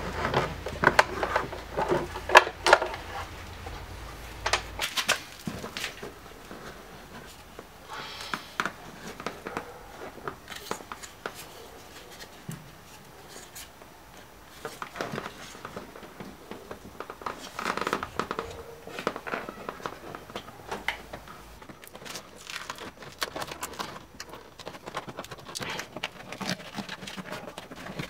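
Work on a BMW E39 front door's inner panel: sharp plastic clicks and knocks, loudest in the first few seconds, as a trim piece is worked loose, then crackling and tearing as the foam moisture barrier is peeled away from the door.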